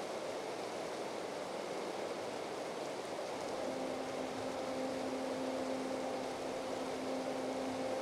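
Steady rush of running water. About halfway through, sustained music notes fade in and hold over it.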